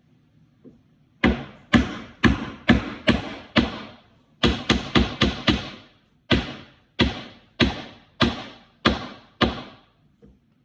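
Hammer driving nails into a wooden birdhouse kit: about seventeen sharp blows in three runs, a steady run of six, a quicker run of five, then six more evenly spaced.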